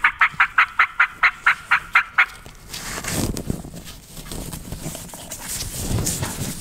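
A quick run of hen-turkey yelps blown on a mouth call, about five notes a second, stopping about two seconds in: a hunter imitating a hen to call in a gobbler. Then footsteps crunch through dry leaf litter.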